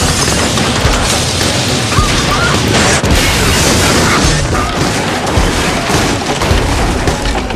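Explosion sound effects from TV drama scenes: a loud, sustained blast roar with crashing, mixed with rock music.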